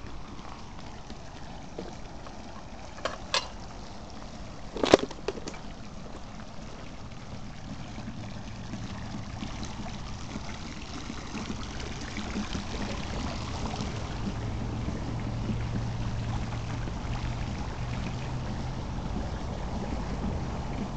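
Steady splashing of water from a pool's return jet, with a few sharp clicks and one louder knock about three to five seconds in. A low steady hum comes in past the middle.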